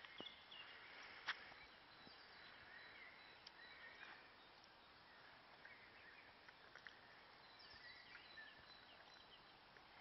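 Near silence: faint outdoor ambience with scattered, faint high bird chirps and a single sharp click about a second in.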